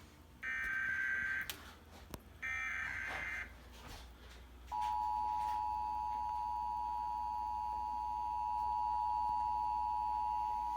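Emergency Alert System Required Monthly Test over a TV: the last two of the three SAME header data bursts, each about a second long and a second apart. About five seconds in, the steady two-tone EAS attention signal starts and holds, marking the start of the alert.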